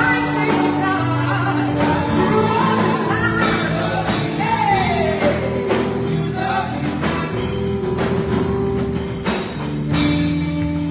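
Gospel music: singing over sustained held chords and a steady beat.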